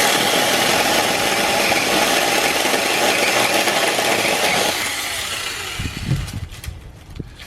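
Battery-powered 6-inch mini chainsaw running and cutting through wood. It starts abruptly, runs steadily for nearly five seconds, then trails off.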